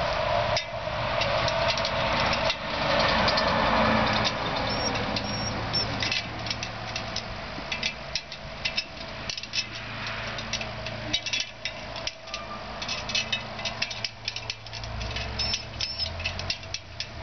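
A small dog's claws clicking and tapping on the rungs of an aluminium ladder as it climbs, with many short sharp clicks through the second half, over a steady low hum.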